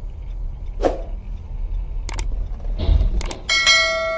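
Dashcam car-cabin road rumble with a few sharp clicks and a low thud about three seconds in, then a bright bell chime that starts near the end and rings on: the ding of a subscribe-button animation.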